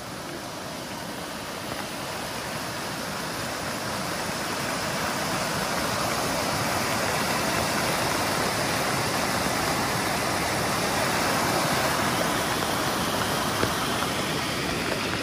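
Brown floodwater rushing through a flooded creek in turbulent rapids: a steady, wide rush of water that grows louder toward the middle and eases slightly near the end.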